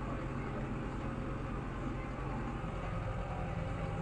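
Tractor engine running steadily, driving a hay tedder, with an even low hum and no change in speed.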